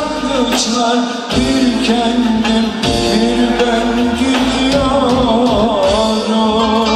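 Live Turkish music: a man singing with an ensemble that includes clarinet and ney, over a rhythmic low accompaniment.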